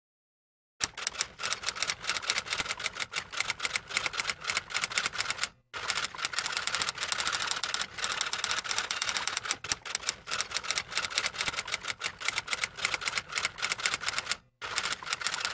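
Typing sound effect: rapid, even key clacks as text is typed out on screen, starting about a second in and pausing briefly twice.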